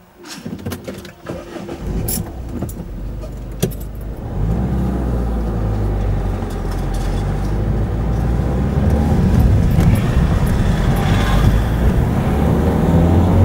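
Car pulling away from a standstill and driving across a level crossing: a low engine and road rumble that grows louder about four seconds in and keeps building. Sharp clicks and rattles from inside the car come in the first few seconds.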